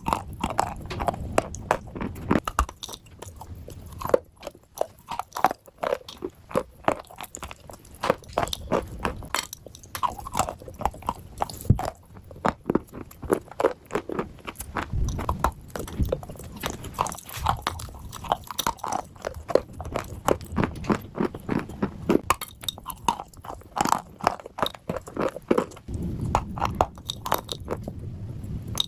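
A person biting and chewing chunks of dry clay, a dense, irregular run of crunches and crackles.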